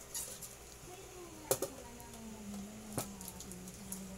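A few sharp clicks and knocks of plates and hands on a tabletop, the loudest about a second and a half in and another about three seconds in, over a faint steady low hum in the second half.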